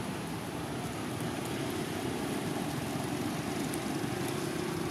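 A steady low mechanical drone, like a distant engine running, unchanging throughout.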